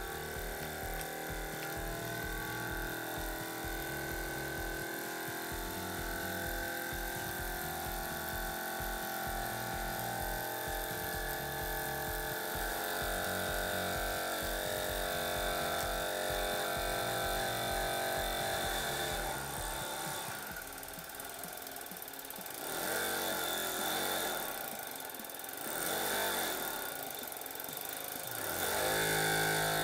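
Miniature brass single-cylinder live-steam engine running fast with a steady rapid chuffing rattle. About two-thirds of the way through its even beat breaks up and the sound dips and swells as fingers brake the flywheel, then comes back louder near the end.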